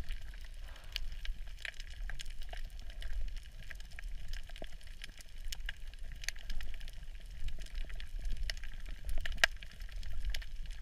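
Underwater reef sound picked up through a camera housing: irregular sharp clicks and crackle from snapping shrimp, scattered throughout, over a low rumble of moving water.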